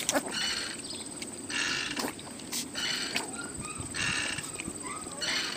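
Several puppies lapping and slurping liquid from a shallow steel pan, in repeated short wet slurps.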